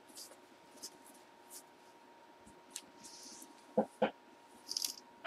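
Light rustling and scratching of a pinstriped baseball jersey's fabric being handled and unfolded, in short scattered bursts, with two short louder sounds about four seconds in. A faint steady tone runs underneath.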